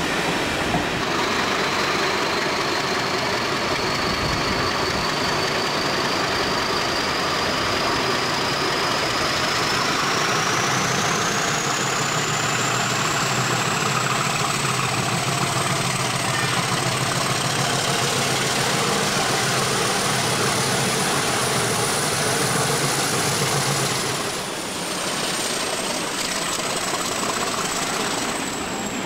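British Rail Class 50 diesel locomotive's English Electric V16 engine running steadily under a station roof, with a high whistle that climbs slowly in pitch for about twenty seconds and then falls away near the end as the locomotive moves off.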